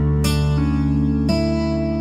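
Background music: plucked guitar notes and chords ringing out, a new note or chord every second or so.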